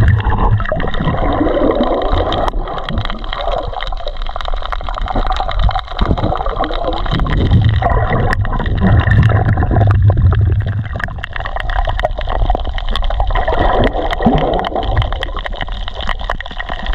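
Muffled underwater sound heard through an action camera's waterproof housing: water gurgling and swirling around the camera as it moves through the shallows, swelling and easing every few seconds, with many faint scattered clicks.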